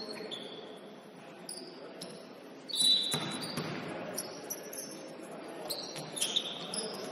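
Basketball game play: a basketball bouncing and sneakers squeaking on the court, with players' voices. A louder burst of noise comes about three seconds in.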